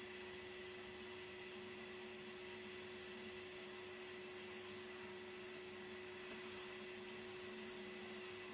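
Gas brazing torch burning with a steady hiss and a constant hum underneath, while hard solder is applied to a copper-brass radiator support stand.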